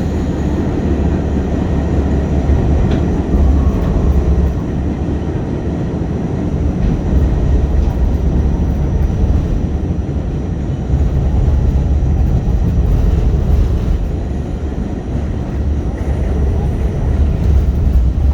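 New York City subway train running, a steady heavy low rumble that swells and eases slightly.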